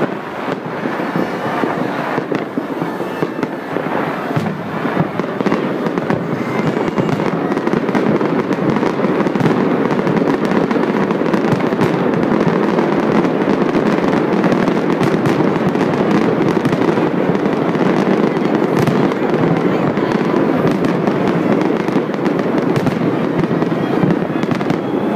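Fireworks display: a dense, continuous barrage of bursts and crackle that grows louder over the first several seconds and then stays loud.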